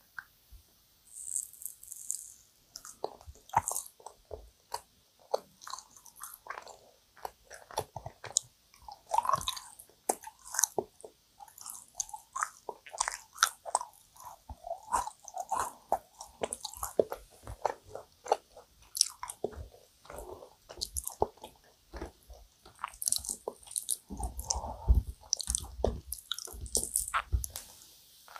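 Close-miked chewing of dense, sticky yakgwa (Korean honey-fried cookie): a steady run of wet mouth smacks and clicks, with a few low thumps near the end.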